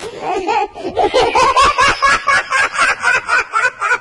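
Hearty human laughter. It begins with a voice sliding up and down in pitch, then breaks into a run of rhythmic 'ha-ha' bursts, about four a second.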